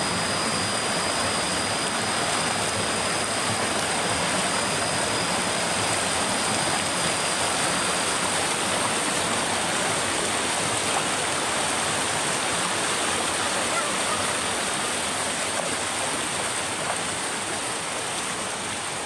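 Shallow stream running over rocks and small rapids: a steady rush of flowing water.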